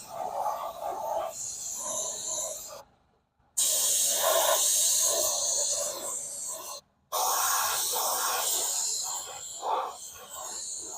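Hiss of pressurized air spraying at the wheel, in three spells broken by two abrupt silences.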